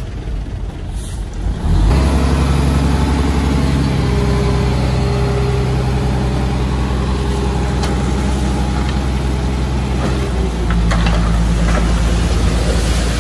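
Heavy diesel earthmoving engine, from a bulldozer or a dump truck, running under load. It gets much louder about two seconds in, holds steady, then changes note about ten seconds in, with a few sharp knocks near the end.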